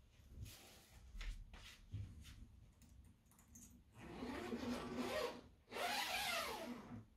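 Household handling noises: soft knocks and rubbing, then from about four seconds in two louder stretches of scraping and rustling that stop just before the end.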